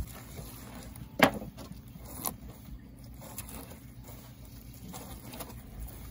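Fish being cut and handled on a cleaning table: scattered knocks and clicks, with a sharp knock about a second in and another a second later, over a steady low hum.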